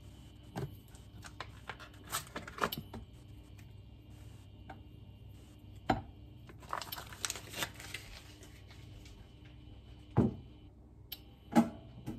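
Kitchen handling sounds: a series of separate clicks and knocks of cookware and utensils, with a short stretch of rustling about seven seconds in and two louder knocks near the end.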